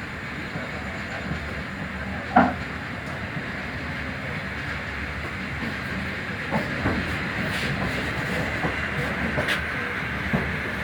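Passenger train running along the track: a steady rumble and hiss of wheels on rails with scattered clicks, and one sharp knock about two and a half seconds in.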